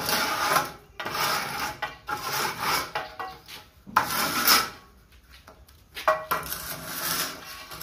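Rough scraping of a straight edge drawn over fresh cement plaster at a wall edge, cutting it back to a clean line. Repeated strokes about one a second, with a pause of about a second midway.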